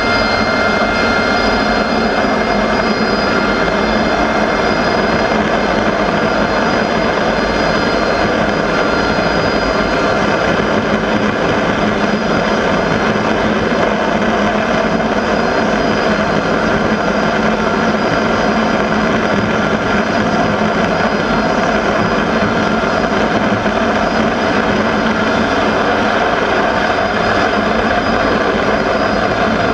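AV-8B Harrier jet noise from Rolls-Royce Pegasus turbofans: a loud, steady rushing with several high whining tones on top, heard from the open cockpit on the flight deck.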